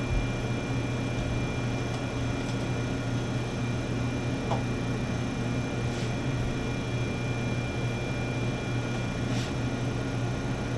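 Steady hum of laboratory equipment, with a low drone and a few thin, high steady tones, and a few faint clicks about two and a half, six and nine and a half seconds in.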